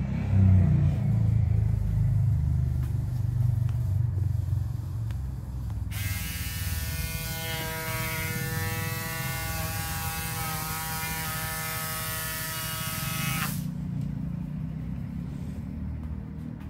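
A small electric motor runs with a steady whine from about six seconds in until near thirteen and a half seconds, over a low rumble that is loudest in the first two seconds.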